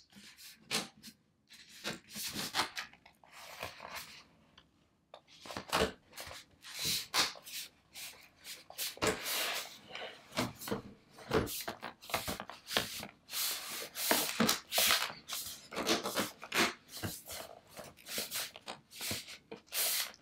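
Hands fitting and pressing down the bottom cover of an MSI GS75 Stealth laptop: irregular rubbing and scraping with many short clicks as the cover's clips are pushed into place.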